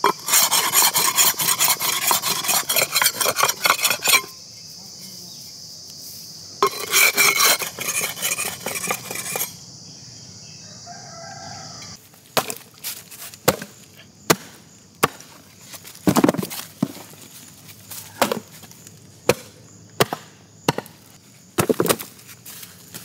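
A cleaver chopping on a wooden chopping stump: from about halfway on, a run of separate sharp knocks at uneven intervals. Earlier, two stretches of dense, fast rattling strokes with a steady high hiss between them.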